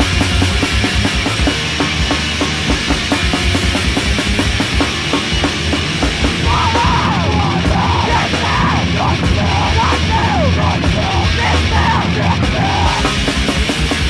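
Loud, heavy punk rock recording with distorted guitars and pounding drums. About halfway through, short wavering high lines come in over it and run until near the end.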